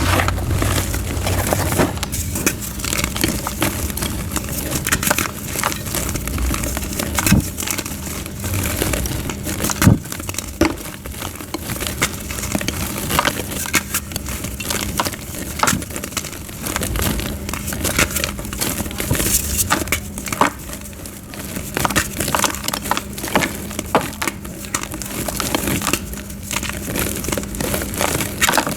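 Blocks of soft gym chalk being crushed and crumbled into powder: dense, irregular crunching and crackling, with a couple of heavier crunches around seven and ten seconds in.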